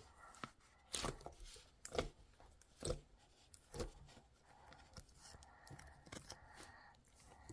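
Crumbly frozen grape ice cream crunching in short, crisp bursts about once a second, with faint rustling in between.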